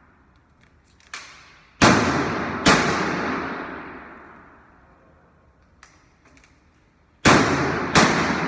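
Loud bangs, each followed by a long fading ring: two close together about two seconds in, and two more near the end, with lighter knocks between.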